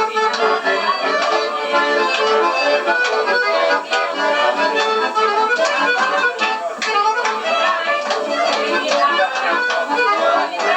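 Bayan (Russian button accordion) playing a tune, with a steady rhythmic chord accompaniment in the lower register.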